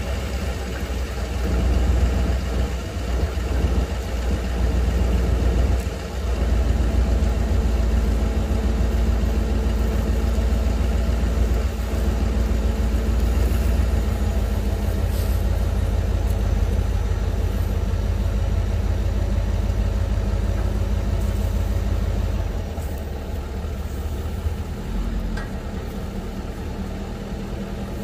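Towing vehicle's engine running steadily at low speed while pulling a car on a chain. About three quarters of the way through, the low rumble drops to a quieter idle as the pull stops.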